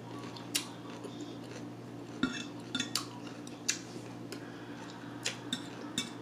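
Cutlery clinking against a plate several times in short, sharp strikes while a meal is eaten, over a low steady hum.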